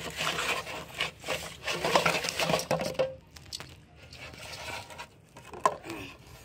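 Plastic bottles and fish knocking and rustling in an aluminium basin as they are set down and shifted, a run of clatter through the first half, then quieter with one sharp knock near the end.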